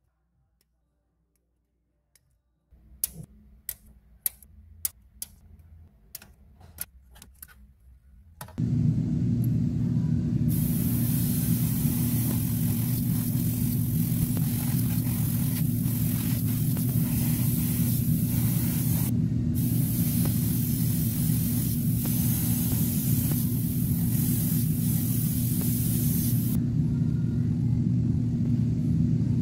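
A series of sharp clicks, then an airbrush compressor starts up about a third of the way in and runs with a steady low hum. Over it, the gravity-feed airbrush sprays with a hiss of air for most of the rest, with a short break midway, stopping a few seconds before the end while the compressor keeps running.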